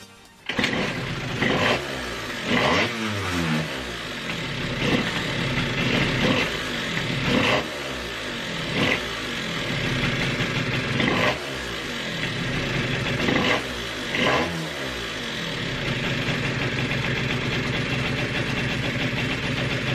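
Freshly rebuilt Piaggio Zip scooter engine running, revved in about ten short throttle blips, each rising and falling in pitch. It settles into a steady idle for the last few seconds.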